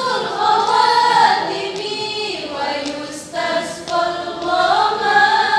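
Women's choir singing a cappella, with notes held for a second or so; the voices dip briefly about three seconds in and come back strongly.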